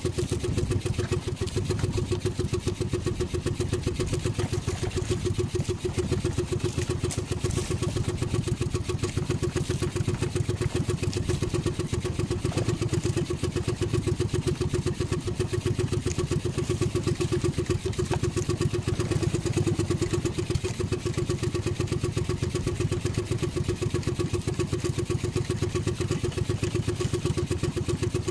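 Small boat engine of an outrigger fishing boat running steadily at an even speed, with a fast, regular firing pulse.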